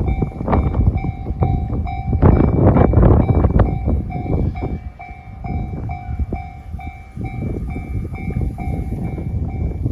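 Japanese railway level-crossing alarm, the standard JR electronic bell, ringing over and over at about two strokes a second. A train passes over the crossing with a heavy rumble and its wheels clicking over the rail joints, loudest about two to four seconds in.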